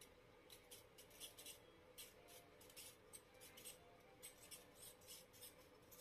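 Old ceiling-fan motor turned by hand on its shaft, its worn-out bearings giving an irregular run of faint, dry scratchy ticks and rasps.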